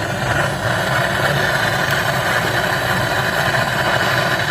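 Gas brazing torch burning with a steady hiss while a refrigeration pipe joint is brazed.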